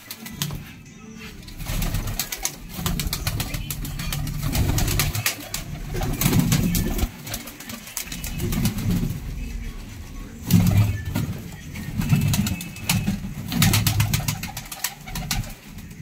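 A flock of domestic pigeons cooing, low coos rising and falling every second or two, with scattered sharp clicks and scuffles from the birds moving about.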